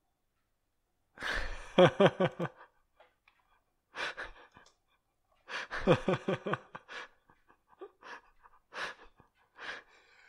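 A person's breathy non-speech vocal sounds, gasps and sigh-like exhalations, in several short bursts with pauses between, two of them pulsing and falling in pitch.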